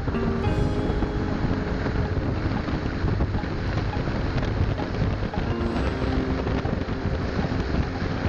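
Speedboat under way: its engine running under heavy wind noise buffeting the microphone.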